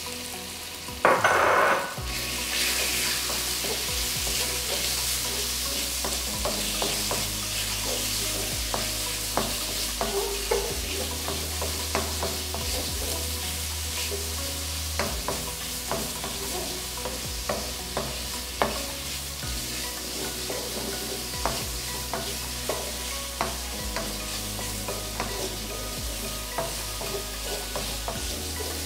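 Marinated boneless chicken cubes sizzling in hot oil in a nonstick wok, with a steady sizzle after a brief louder burst about a second in. A wooden spatula stirring the chicken scrapes and taps against the pan many times.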